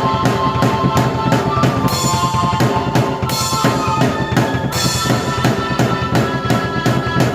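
Drum kit and keyboard played together by one player: a busy beat of kick and snare with several cymbal crashes, over sustained keyboard notes.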